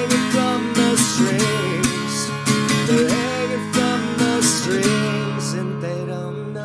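Instrumental passage of a folk-country song: acoustic guitar strummed in a steady rhythm, with a melody line that bends in pitch over the chords. The strumming eases off near the end.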